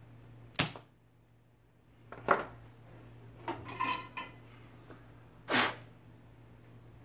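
A spring-loaded desoldering pump snaps as it fires, then tools and a circuit board are set down on a workbench with sharp knocks and a short run of ringing clinks. Three loud snaps in all, well apart, over a faint steady hum.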